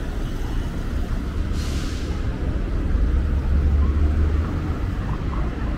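City street traffic: cars driving past close by, with a steady low rumble that swells a few seconds in and a short hiss about a second and a half in.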